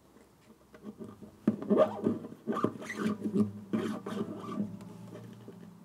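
A wound nylon D string on a classical guitar being pulled through the bridge hole and handled, in short scratching and rubbing strokes, with faint ringing tones from the strings.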